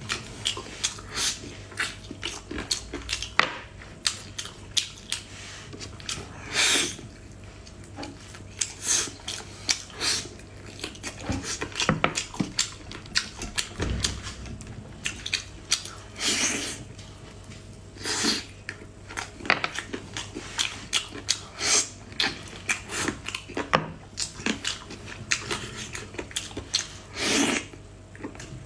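Close-miked eating sounds: wet chewing and lip smacking in quick clicks, with a few longer sucking slurps.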